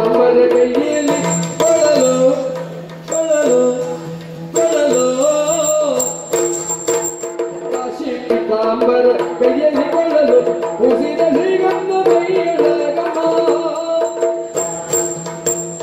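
Yakshagana music: a male voice singing a wavering melodic passage without clear words, over maddale barrel-drum strokes, hand-cymbal (tala) strikes and a steady low shruti-box drone.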